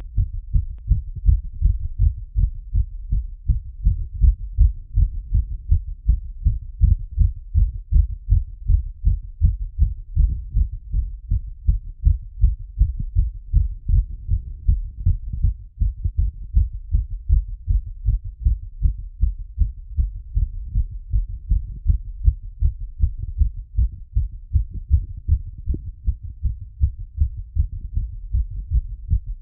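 Human heartbeat heard through a stethoscope after exercise: fast, regular lub-dub beats, low-pitched and muffled.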